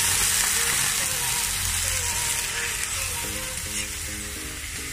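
Raw chicken pieces sizzling as they hit a hot wok of sautéed garlic, onion and ginger, stirred with a metal ladle. The sizzle is loud at first and slowly eases as the meat cools the pan.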